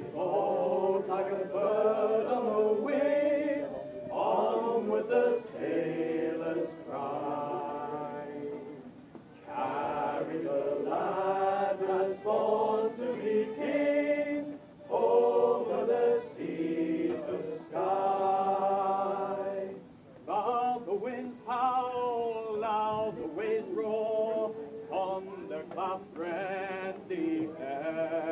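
A group of men singing a sea shanty unaccompanied, in long phrases with short breaks between them.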